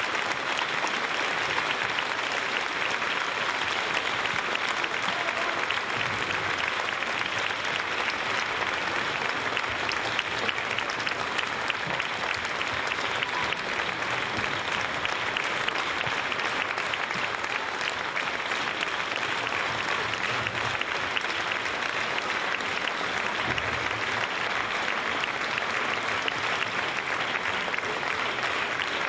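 Theatre audience applauding steadily, a dense, unbroken clapping with no pauses.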